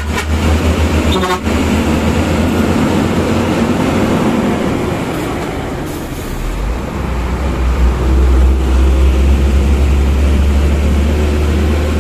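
Hino Ranger dump truck's diesel engine running on the move, a loud low drone with heavy road and wind noise through the open cab window. The drone eases for a moment midway and comes back, and a brief horn blast sounds about a second in.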